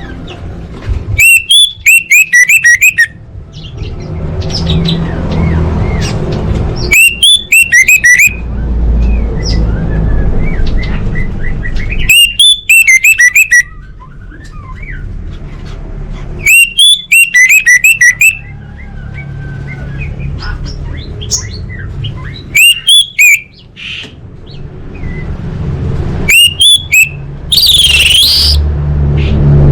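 Orange-headed thrush singing: six loud bursts of rapid, repeated notes, several seconds apart, with a sweeping high call near the end.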